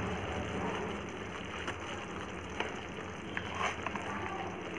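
Spice paste of ground cashews, almonds and ginger frying gently in mustard oil in a kadai: a soft, steady sizzle and bubbling with a few small pops.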